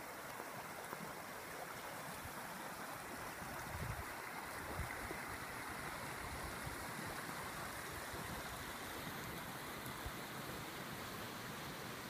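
Small stream rushing over rocks, a steady wash of running water.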